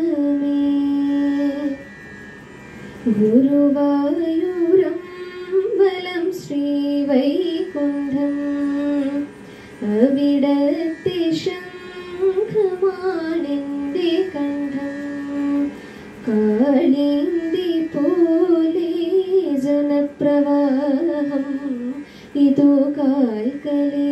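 A young woman singing a melodic song solo, holding long notes and bending into ornamented turns between them, in phrases broken by brief pauses.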